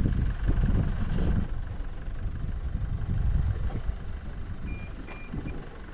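Vehicle engine running with a low rumble that eases off over a few seconds, and three short high beeps near the end.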